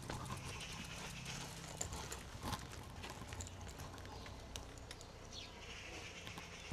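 A bicycle rolling along a town road, with irregular light clicks and knocks from the bike and its camera mount rattling, over a low rumble.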